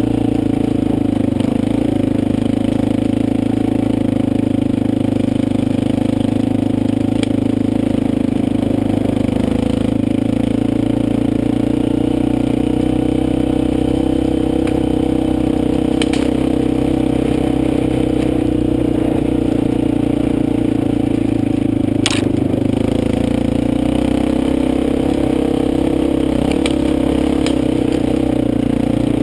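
Motorcycle engine running steadily while riding, with a few sharp clicks or knocks, the loudest about two-thirds of the way through.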